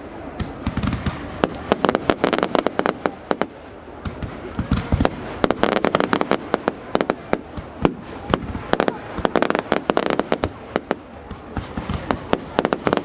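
Fireworks going off in a dense barrage: rapid crackling bangs in clusters, with a few deeper thuds among them.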